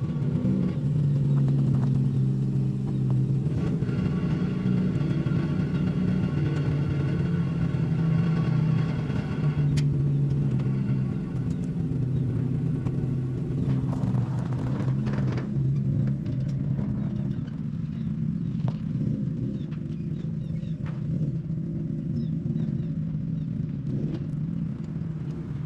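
A vehicle engine running steadily at a fairly constant speed, with a few short knocks and rattles partway through.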